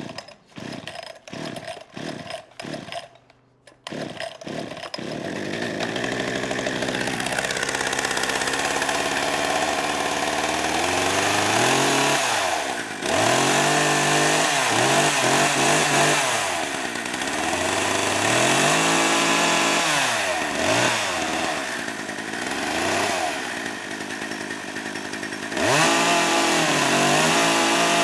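Two-stroke chainsaw engine firing in a string of short bursts, then catching and running. It is then revved up and down repeatedly, its pitch climbing and falling several times.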